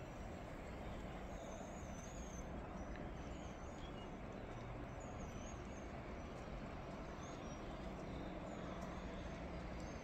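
Steady low outdoor background rumble during a snowfall, with a small bird calling in short, high, wavering chirps about five times.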